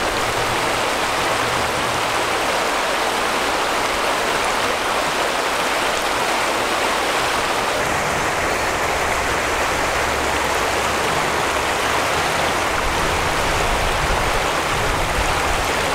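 Shallow river water rushing over rocks in small rapids: a steady, even rush of running water.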